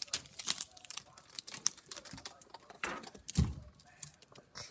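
Plastic toys and a plastic bag being handled and rummaged through: a string of small clicks and crinkles, with a dull thump about three and a half seconds in.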